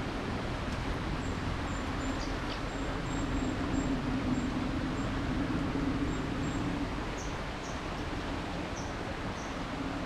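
Steady rush of flowing river water, with a few short, high bird chirps over it, mostly in the second half.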